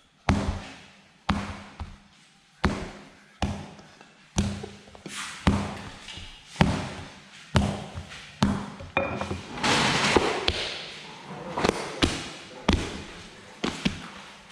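Wooden rolling pin knocking on a flour-dusted work table as a large sheet of varkey dough is rolled out: sharp knocks roughly once a second, each trailing off briefly. A louder stretch of scraping noise comes about ten seconds in.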